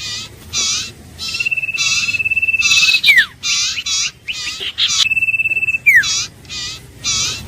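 Common iora calling: a series of raspy, wavering chirps about once a second, overlaid twice by a long, steady, high whistle that ends in a quick falling slur.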